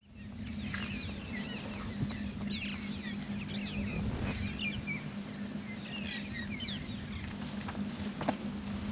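Several birds chirping, with many quick rising and falling notes, over a steady low hum. The chirping thins out near the end.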